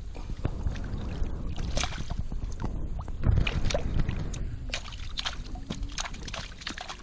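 Water splashing and sloshing, with scattered knocks and taps and one heavier thump a little past three seconds in.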